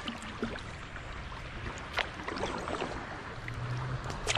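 Water swishing and lapping against a plastic kayak hull as it is paddled down a flowing river, with a few sharp ticks about two seconds apart.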